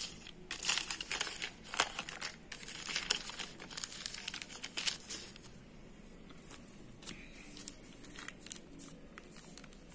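A crumpled paper invoice crinkling and rustling as it is handled and unfolded. The crackling is busiest in the first half, then thins to a few faint crackles.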